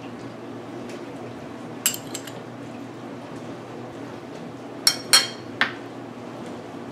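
Metal spoon and small glass dish clinking against a ceramic mixing bowl: a quick cluster of three clinks about two seconds in, then three sharper, ringing clinks around five seconds in, the loudest of them.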